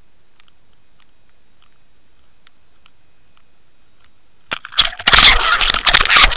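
Underwater camera on a fishing line: faint ticks, then about four and a half seconds in a sudden loud crackling rush of water and knocking against the camera housing as a striped bass strikes the lure and jerks the line.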